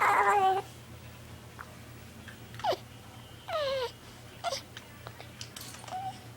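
Baby cooing and squealing: a warbling coo at the start, then a few short calls that slide down in pitch, with quiet between them.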